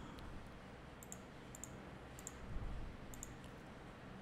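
Faint clicking of a computer mouse: four quick clicks, each a close double tick of button press and release, spread through the moment, with a soft low bump about halfway through.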